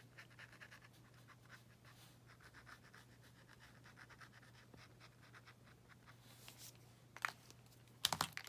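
Faint, quick scratching of a brush mixing and working paint on paper, with a few sharper, louder strokes near the end over a low steady hum.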